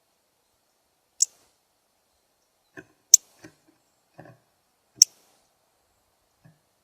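Three short, sharp high chip notes about two seconds apart, typical of a northern cardinal's chip call, with a few faint soft knocks between the second and third.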